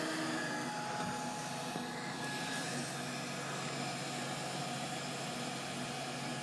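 MakerBot 3D printer running mid-print: the extruder's cooling fan gives a steady rush while the stepper motors, driven by newly fitted BotStep driver chips, hum in steady tones that shift in pitch a couple of times as the print head moves.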